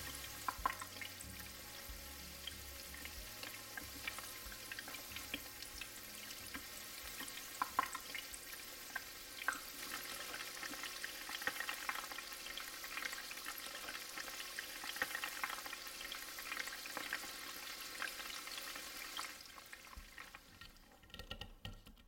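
Food sizzling in hot oil in a pan, a steady hiss with scattered crackles and pops, dying away near the end.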